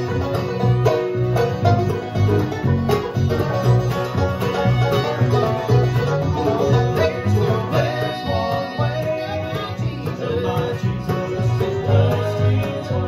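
Bluegrass band playing live: banjo, fiddle, acoustic guitars and upright bass together, over a steady bass beat.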